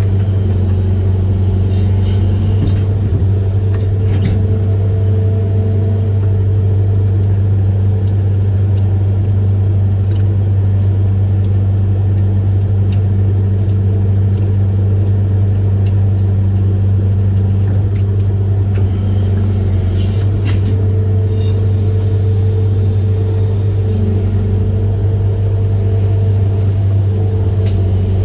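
Amphibious excavator's diesel engine running at a steady, unchanging pitch, a constant low drone with an occasional faint click.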